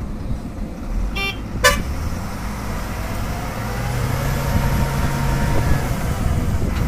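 Diesel engine rumble of a Tata Hitachi excavator and a dump truck running together, with two sharp clicks close together a little over a second in.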